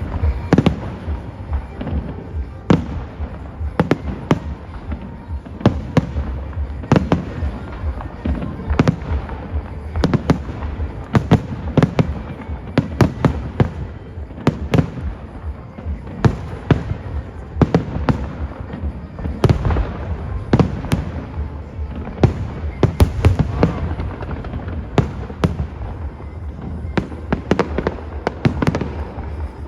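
Fireworks bursting in a rapid, irregular barrage, several sharp bangs a second over a continuous rumble, with faint show music underneath.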